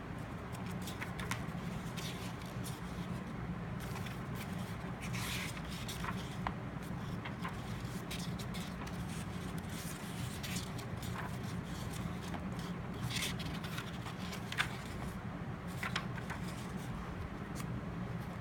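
Paper rustling and scraping, short irregular sounds like the pages of a planner being handled and turned, over a steady low hum.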